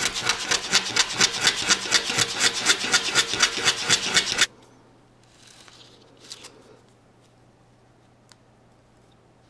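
Balsa-wood model rocket fins rubbed back and forth by hand on a sheet of sandpaper, sanding them to the same length: quick, even strokes, about four to five a second, that stop abruptly about four and a half seconds in. After that, only faint rustles of the fins being handled.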